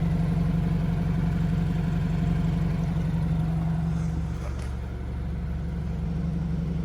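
BMW F30's N26 turbocharged four-cylinder engine idling: a steady low drone that eases off slightly about four and a half seconds in.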